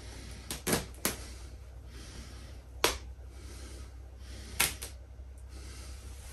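Fabric and seams of a large stuffed toy horse ripping in short, sharp jerks as it is torn apart by hand, about six times, the loudest near the middle, over a steady low hum.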